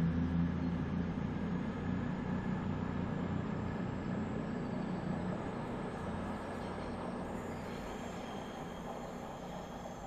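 CrossCountry Voyager diesel multiple unit moving away, its underfloor diesel engines giving a low drone that fades steadily as the train draws off.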